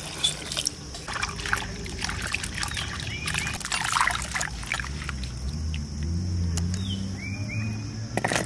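Water pouring into a bowl of cut giant taro cubes, then hands swishing and sloshing the pieces around in the water to wash them, in irregular splashes. Small birds chirp a few times in the background.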